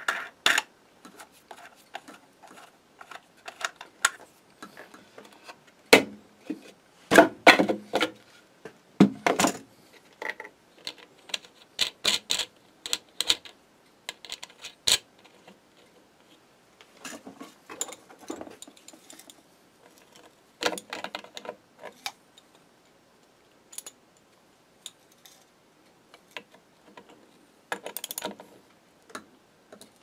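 Irregular clicks, knocks and light metallic clatter of hand work with small hardware on a wooden frame: bolts, wing nuts and the painted wooden feeder parts being handled and set against each other, with a few louder knocks.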